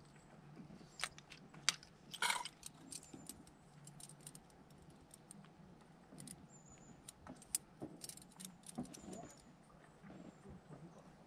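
Small hard items being handled: scattered light clicks and clinks, with the loudest cluster about two seconds in.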